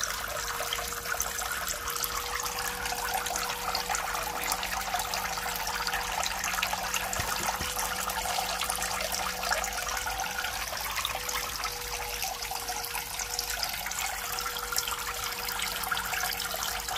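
Water running and trickling steadily into a fish-rearing tank of a recirculating aquaculture system, with a faint steady hum underneath.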